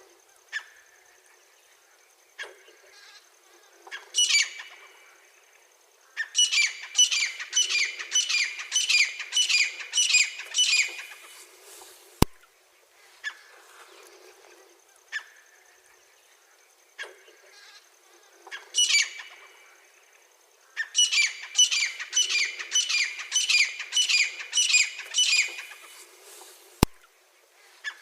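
Grey francolin (teetar) calling: a few single notes, then a fast run of about ten loud, ringing notes at about two a second. The same sequence repeats about halfway through, with a sharp click where the recording loops back.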